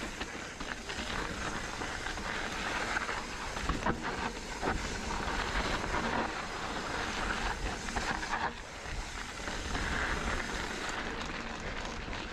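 Mountain bike rolling fast down a dry dirt trail: steady tyre noise and wind rush, broken by scattered knocks and rattles as the bike runs over rough ground and rocks.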